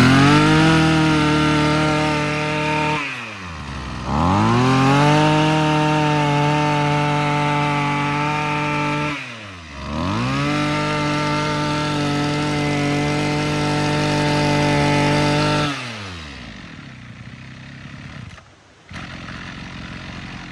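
Maruyama 26cc two-stroke brush cutter engine revved up to high speed three times, held there several seconds each time and dropping back between. About three-quarters of the way through it falls back and settles to a quieter idle.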